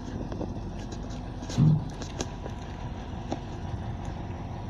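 Truck-mounted crane's diesel engine running steadily, with faint clicks and one brief louder low burst about a second and a half in.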